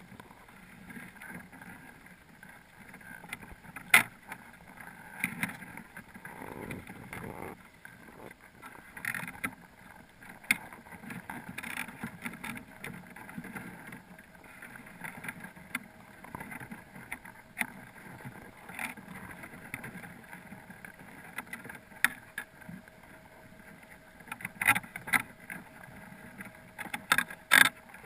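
Muffled underwater noise heard through a GoPro's waterproof housing inside a crab pot. Irregular sharp clicks and knocks come from Dungeness crabs crawling over the pot mesh and against the camera, with a cluster of them near the end. A faint steady hum joins about halfway through.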